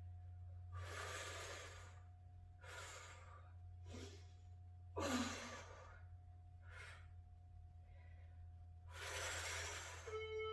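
A woman breathing hard through the effort of kettlebell front raises: about seven audible breaths and exhales, spaced a second or two apart, the sharpest one about five seconds in.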